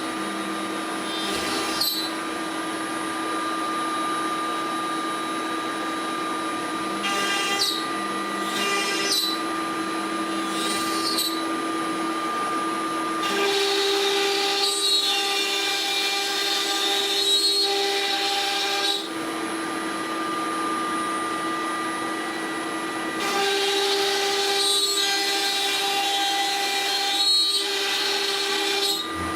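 ShopBot CNC router spindle running with a steady whine while the bit routs rabbets into wood, the cutting noise swelling during two longer passes in the second half.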